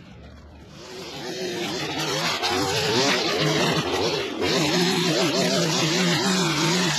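Small engine of a garden power tool running, its pitch wavering up and down under load; it builds up over the first couple of seconds and then runs steadily.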